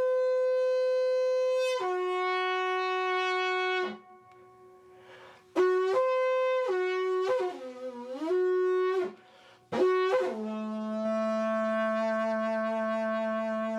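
Construction PVC pipe blown like a horn with buzzing lips: held notes alternating between two pitches, with breaths between phrases. Near the middle one note bends down and back up, and from about ten seconds in a long, deeper note is held.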